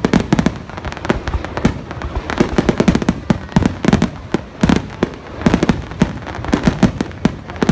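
Aerial firework shells bursting in a rapid, irregular barrage, several loud bangs a second.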